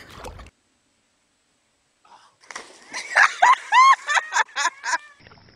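After a short gap of silence, excited high-pitched cries and yells, their pitch arching up and down, come in quick succession with a few sharp cracking knocks among them, then stop shortly before the end.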